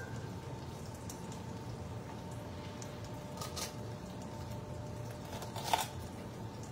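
Wet squishing and rubbing as hands clean fish in water at a sink, over a faint steady hum. There are a few short wet knocks, a sharper one about three and a half seconds in and the loudest near the end.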